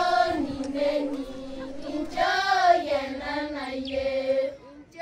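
Children's voices singing a song with long held notes, breaking off about four and a half seconds in.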